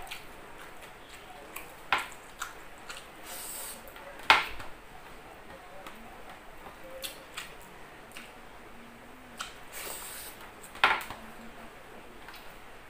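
Eating sounds of rice being taken by hand from a stainless steel tray and chewed: scattered sharp clicks and smacks, the loudest about four seconds in and another near eleven seconds, with two short hissing noises between them.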